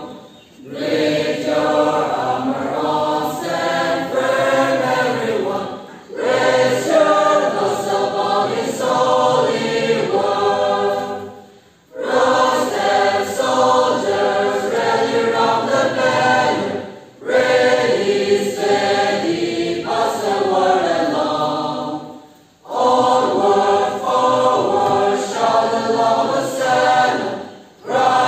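A large congregation of men and women singing a hymn together from hymnbooks, in sung lines of about five to six seconds with a short break for breath between each line.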